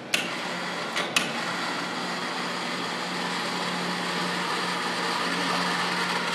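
A machine switching on with a click, then running with a steady motor hum and whirring noise; two more clicks about a second in.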